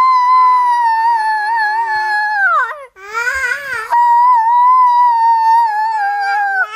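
A small child screeching at a very high pitch: two long held squeals of about two and a half seconds each, the first dropping away at its end, with a shorter wavering cry between them.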